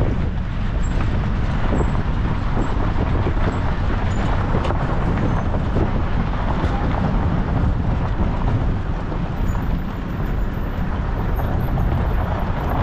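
Motor vehicle on the move: steady engine and road noise.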